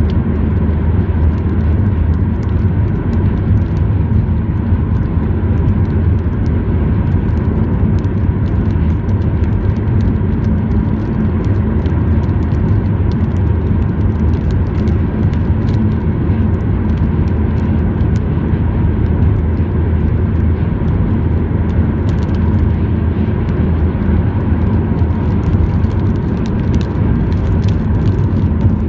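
Steady low engine and tyre drone of a car driving along a dual carriageway, heard from inside the moving car.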